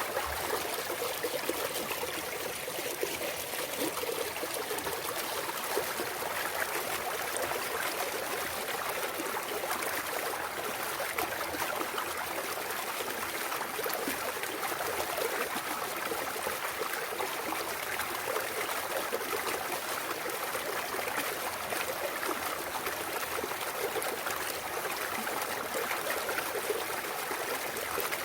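Clear mountain stream water running and trickling over rocks in a steady, unbroken babble.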